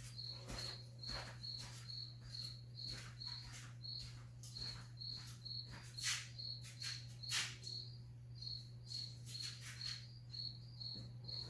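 A cricket chirping steadily, about four short high chirps a second, with scattered sharp clicks and knocks over a steady low hum.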